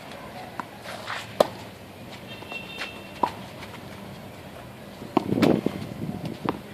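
Sharp knocks of a tennis ball being struck on a clay court, the loudest about a second and a half in and another a little past three seconds, with footsteps on the clay. A louder scuffing rustle comes about five seconds in.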